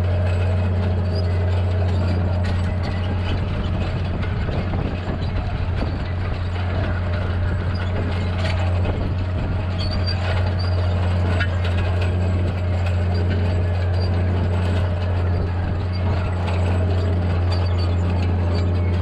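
Tractor engine running steadily under load while pulling an International disc plough through rough, rocky ground, with scattered clanks and rattles from the plough and hitch.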